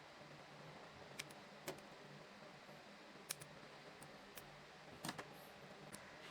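Scattered small, sharp clicks and taps, about seven of them, two close together near the five-second mark, from parts and tools being handled, over a faint steady hum.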